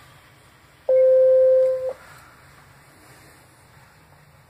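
A TETRA radio sounds a single steady electronic beep tone, about a second long, starting about a second in.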